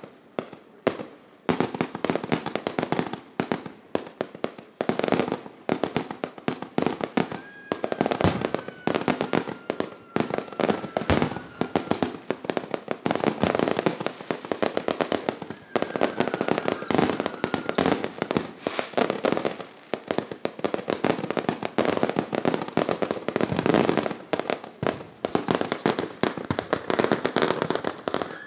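Continuous fireworks barrage: a dense, rapid run of pops, bangs and crackling from aerial bursts and firecrackers with no real pause. Twice a faint falling whistle sounds above the bangs.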